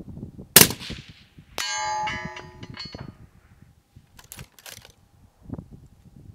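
A 6.5 Creedmoor rifle shot from a Desert Tech SRS-A1 Covert, then about a second later a steel target ringing with a clear metallic tone that fades over more than a second. A few faint clicks follow.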